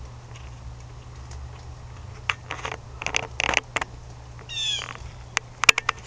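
Animal calls: several short, harsh calls in a cluster, then one drawn-out pitched call, then a few sharp clicks near the end, over a low steady hum.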